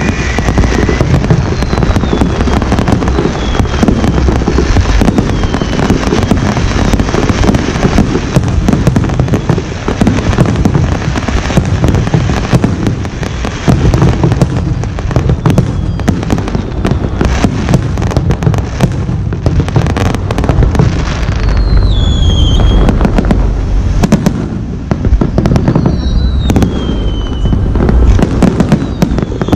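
Daytime fireworks barrage, likely the finale: a dense, unbroken stream of bangs and crackling from many shells bursting at once. A few high falling whistles cut through in the second half.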